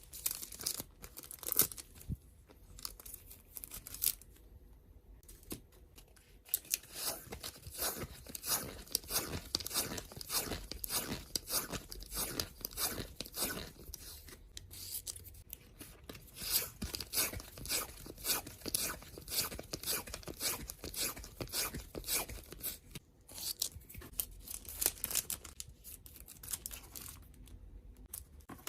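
Washi tape being peeled off its roll and wound by hand, a quick crackling, tearing rustle. It is sparse at first and becomes almost continuous from about six seconds in.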